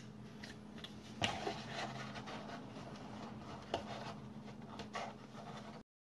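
Papercraft model pieces being handled and fitted together: light rustling and scraping of paper with two sharper taps, over a faint steady hum. The sound cuts out completely just before the end.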